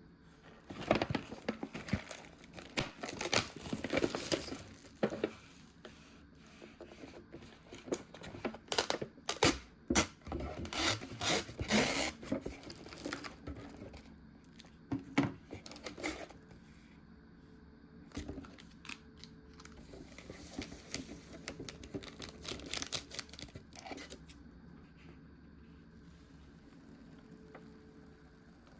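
Packaging of a Donbei cup of instant udon being torn open and crinkled: crackly tearing and rustling in bursts for about the first half, then softer rustling.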